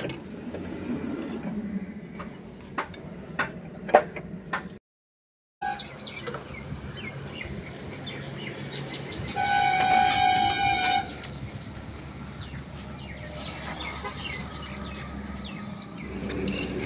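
Sharp metallic clicks and knocks of hand tools on a truck's diesel fuel injection pump, then a vehicle horn sounding once for about a second and a half, over steady low background noise.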